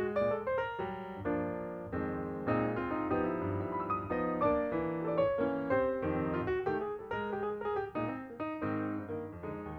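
Background piano music, a run of notes and chords at a moderate pace.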